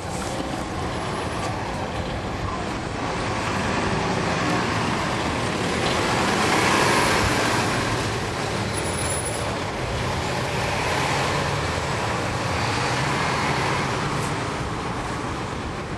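Cabin sound aboard a 2011 NABI 40-SFW transit bus under way: its Cummins ISL9 diesel engine running with road noise. It swells and eases twice.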